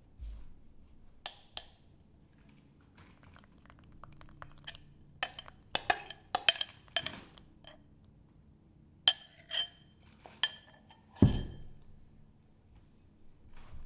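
Spatula clinking and scraping against a glass mixing bowl while stirring crumbly scone dough: scattered sharp, ringing clinks coming in two clusters, then one heavier knock a little after the middle.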